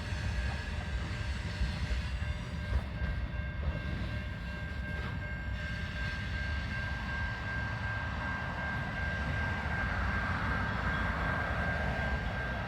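CN freight train rolling past: a steady low rumble of cars on the rails with a few wheel clicks, under a steady high-pitched whine.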